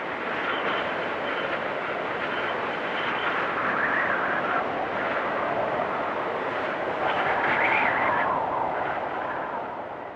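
Wind storm blowing hard: a rushing gusty noise that swells twice, with a faint high whistle early on, then dies down near the end.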